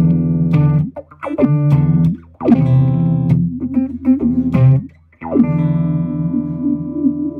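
Electric guitar played through an EarthQuaker Devices Spatial Delivery envelope filter in downward-sweep mode with the band-pass and low-pass filters blended. Several picked notes and chords, each one opening with a quick filter sweep that falls in pitch before the note rings on.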